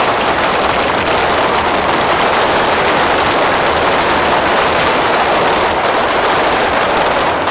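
Fireworks display: a dense, steady crackling rush of many small cracks and pops.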